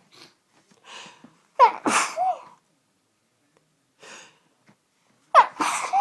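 A woman sneezing twice during a sneezing fit: a short intake of breath, a sudden voiced sneeze about one and a half seconds in, another faint breath, then a second sneeze near the end.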